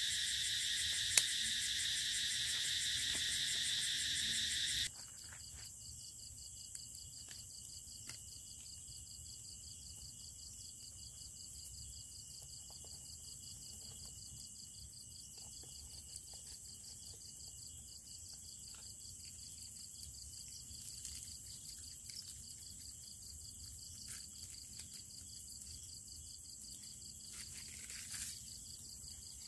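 Evening chorus of crickets and other insects, a dense high-pitched shrilling; about five seconds in it cuts abruptly to a quieter chorus with a steady pulsing trill, with faint scattered clicks over it.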